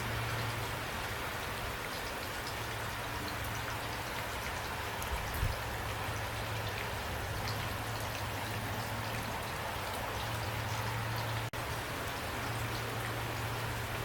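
Steady rain falling, an even hiss with scattered drops ticking, over a low steady hum. The sound drops out for an instant about two-thirds of the way through.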